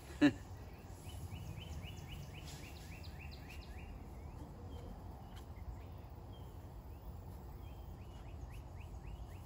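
Outdoor background with a low steady rumble, over which a small bird gives two fast runs of short falling chirps, about five a second, one about a second in and one near the end. A single sharp knock just after the start is the loudest sound.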